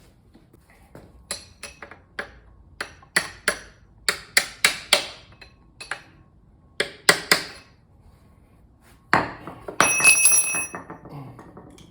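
Pliers working on a steel transmission shaft to pull out a Woodruff key: a scatter of sharp metallic clicks and taps. Near the end comes a louder cluster of knocks with a short ringing clink of metal.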